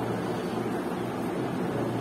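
Steady background room noise: an even hiss with a constant low hum, like a fan or air conditioner running.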